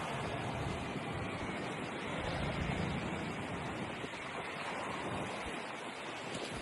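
Steady rushing noise of a storm: a dense, even roar of wind and rushing water with no clear individual events.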